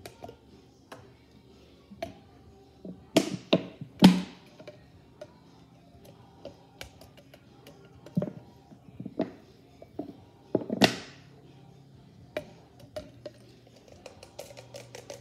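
Plastic glue bottle and plastic cup handled on a tabletop while white glue is squeezed out: scattered sharp knocks and taps, the loudest cluster about three to four seconds in and another near eleven seconds.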